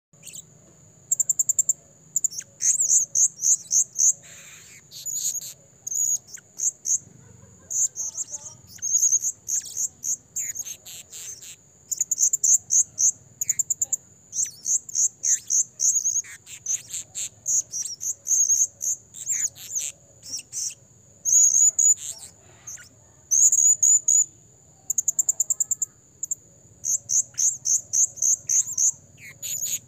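Male blue-crowned hanging parrot (serindit) calling continually: short bursts of rapid, very high-pitched shrill chips, several notes to a burst, repeated every second or so.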